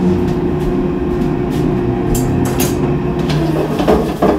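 Kitchen cooking appliance running with a steady hum while potatoes cook inside. The hum stops about three seconds in, and a few sharp knocks and clatters follow.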